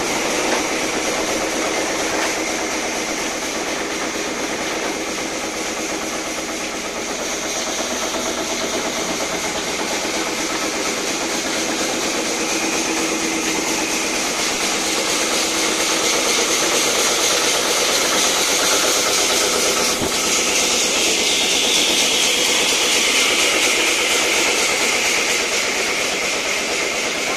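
Sawmill machinery running steadily: a continuous engine-like hum with a strong, high hiss over it.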